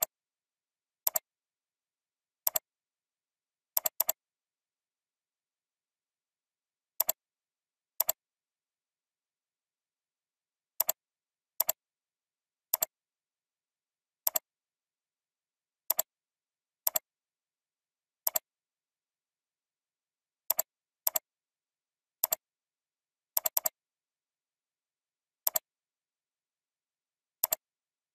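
Computer mouse clicks, single or in quick pairs and clusters, spaced irregularly a second or more apart, with silence between.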